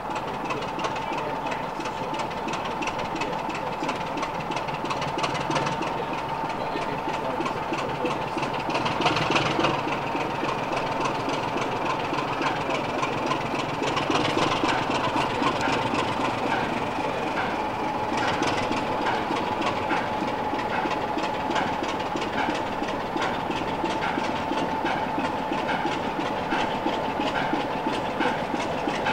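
Class 26 diesel locomotive engine running, a steady whine over its beat. From about halfway through, a light click repeats about one and a half times a second.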